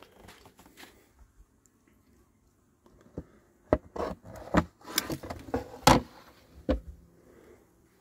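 White plastic beehive tray being handled against the hive's base and the ground: a quiet start, then from about three seconds in a run of sharp knocks and scrapes that stops about a second before the end.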